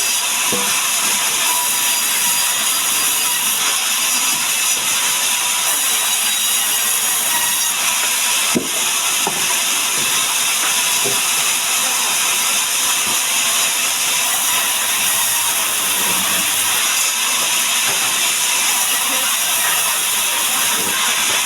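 Sawmill saw running with a loud, steady hissing noise, with one sharp knock about eight and a half seconds in.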